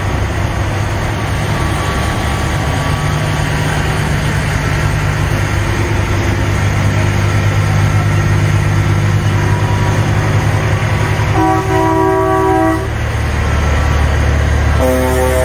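Diesel semi-truck engines idling with a steady low drone. About eleven seconds in a truck air horn blasts for about a second and a half, and another horn starts near the end.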